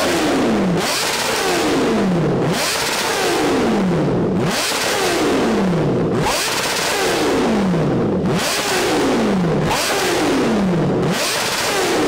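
Kawasaki ZX-10R inline-four sportbike with an aftermarket headerback exhaust, free-revved hard again and again: about seven or eight throttle blips, each a sharp rise that falls quickly back down in pitch. It is loud enough to read in the low 80s of dB on a sound meter.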